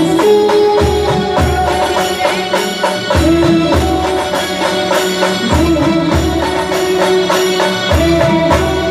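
Amplified Indian band music over a loudspeaker system: jingling tambourine-like percussion, a repeating pair of deep drum hits, and held, slightly bending melody notes from a girl singing into a microphone.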